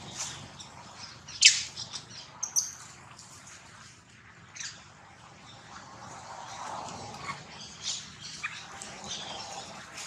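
Scattered short, sharp high-pitched animal squeaks and chirps over a steady outdoor hiss, the loudest about a second and a half in, a quick cluster soon after, and a softer, lower call a little past the middle.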